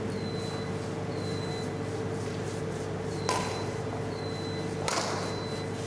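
Two sharp racket strikes on a shuttlecock, about a second and a half apart, over the steady hum of a large sports hall.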